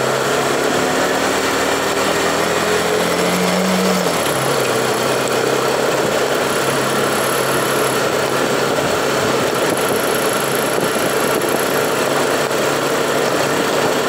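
Motorcycle engine running under way, with a steady rush of wind. Its pitch rises slowly for the first four seconds, then drops and holds steady.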